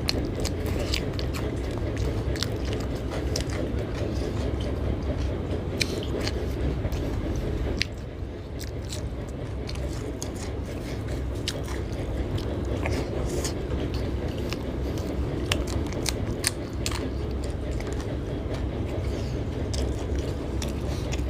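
A person chewing and biting food close to the microphone, with many short, sharp crunches scattered throughout, over a steady low rumble.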